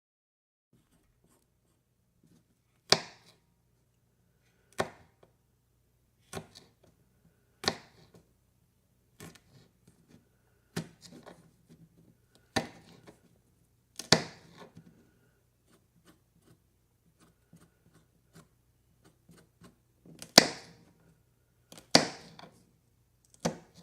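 A series of short, sharp clicks or snaps, about one every second and a half, with a gap of several seconds in the middle. The loudest falls near the end.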